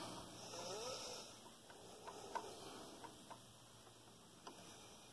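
Faint, scattered light clicks of a long screwdriver's tip feeling for and seating in the black hook-assembly screw inside a Viking Husqvarna 6460 sewing machine, before the screw is loosened to reset the hook timing.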